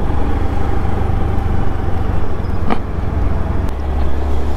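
Riding a Honda Activa scooter in city traffic: a steady low rumble of wind on the microphone and road noise, with a faint steady tone in the first two seconds and a single click a little past halfway.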